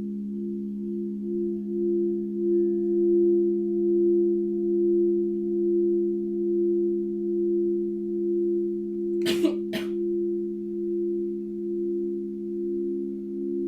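Singing bowls sounding together as a sustained chord of several low steady tones, swelling and fading about once a second as they beat against each other. About two thirds of the way through come two brief knocks half a second apart.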